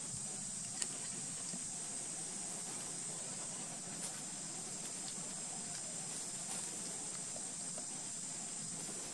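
Steady high-pitched hiss, with a few faint clicks, the clearest about a second in.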